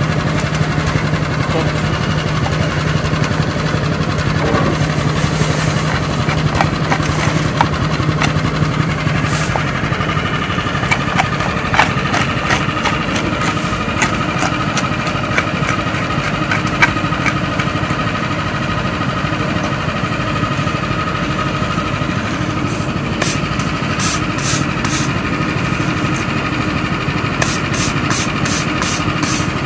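An engine idling steadily throughout, under the scraping and rattling of a rake spreading and levelling loose tarmac chippings on a pothole patch. Near the end come quick repeated strokes of a stiff broom sweeping the patch edges.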